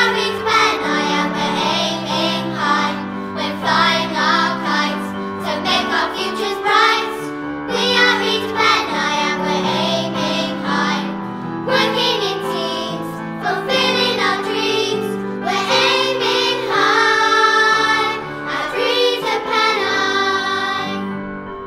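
A group of children singing a school song with instrumental backing.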